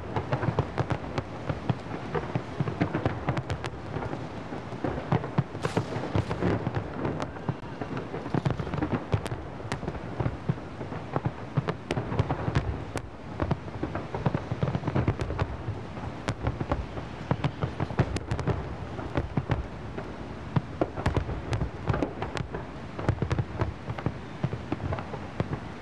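Large aerial fireworks display: a continuous barrage of many shells bursting at once, dense crackling and popping over a low rumble.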